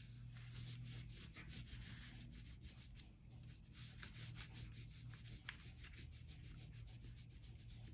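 Pentel oil pastel rubbed back and forth across paper in quick repeated strokes, a faint scratchy rubbing, over a steady low hum.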